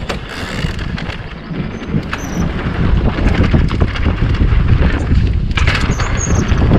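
Mountain bike rolling along a dirt trail, with wind buffeting the microphone and the tyres and frame rattling in short clicks. The rumble grows louder about three seconds in.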